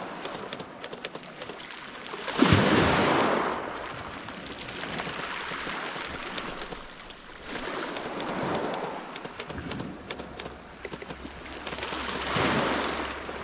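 Sea waves surging and washing on the shore, three swells of rushing water about five seconds apart, with fine crackling between them.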